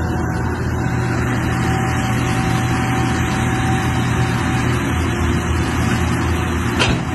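Caterpillar excavator's diesel engine running steadily as the machine works to free itself from deep dirt, with one short knock near the end.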